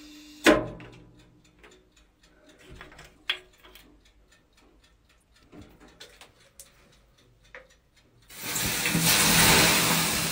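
Handling knocks and clicks, with one sharp thump about half a second in. About eight seconds in, a loud, steady rushing hiss of steam starts up in the sauna.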